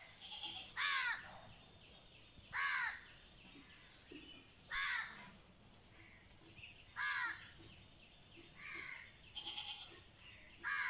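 A crow cawing, five short harsh caws about every two seconds, over a steady high-pitched whine in the background.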